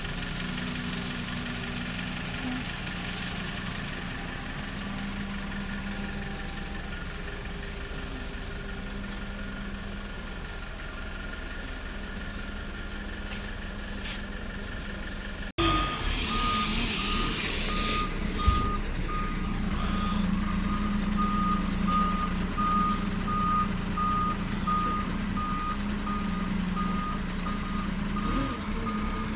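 A heavy vehicle's engine running steadily. After a sudden change about halfway through, a truck's reversing alarm beeps at an even pace over its running engine, with a loud hiss for a couple of seconds just after the change.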